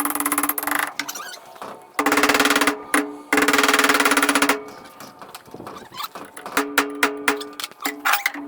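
Handheld power tool running in short bursts, a rapid rattle over a steady motor tone, fitting parts on a John Deere 444 corn head. There are two longer runs in the first half, then a string of quick blips near the end.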